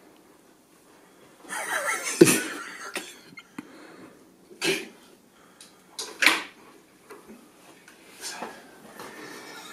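Scuffling and knocks against wooden window shutters as a terrier lunges and paws at a rat perched on top of them. The loudest knock comes about two seconds into a scuffle, followed by a few shorter noisy bursts.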